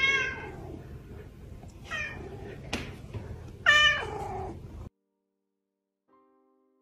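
Long-haired cat meowing in greeting: a meow at the start, a fainter one about two seconds in and a loud one near four seconds, with a single click in between. The sound cuts off about five seconds in, leaving a few faint piano notes.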